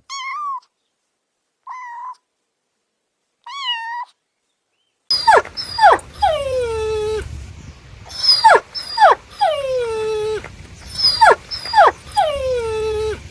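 Puppy vocalising: three short, high whimpers in the first few seconds. Then, from about five seconds in, repeated loud yelps, each pair of sharp yelps dropping in pitch and followed by a longer whine that slides down.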